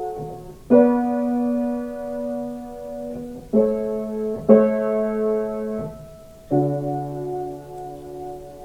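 Acoustic piano playing slow chords, four struck and each left to ring and fade. These are the closing bars of the song's accompaniment after the last sung line.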